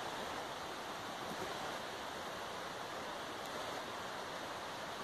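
Wind rushing steadily through the tops of tall conifers, an even whoosh without gusts or breaks.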